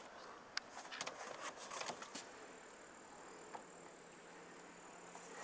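Quiet outdoor ambience: a few light clicks and rustles in the first two seconds, then a faint steady high-pitched tone.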